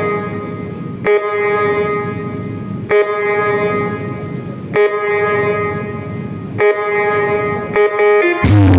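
Long horn-like tones played through a large sound system, one steady blast after another about every two seconds, each break marked by a click. Near the end a deep bass drop with a falling sweep comes in.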